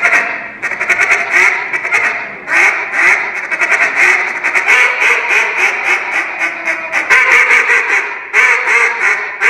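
Custom JJ Lares duck call blown by a junior competitor in a realism calling routine, imitating a mallard hen: a continuous run of loud quacks, with fast chattering runs about a second in and again near the end.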